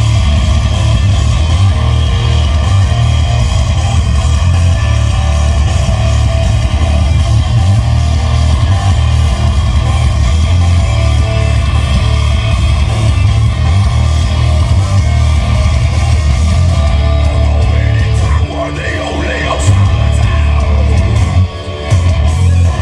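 Loud guitar-driven music with very heavy bass blasting from a large horeg-style festival sound system. The bass and level dip briefly a few seconds before the end.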